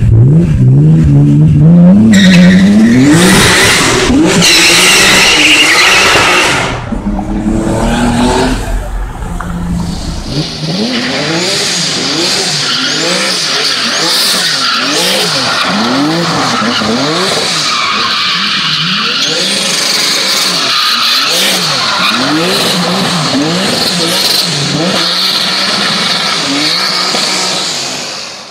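Turbocharged BMW E46 M3 straight-six revving hard with rapid exhaust popping from the two-step launch limiter. From about ten seconds in, a BMW being drifted in circles: the engine revs up and down again and again over steady tyre squeal, fading out near the end.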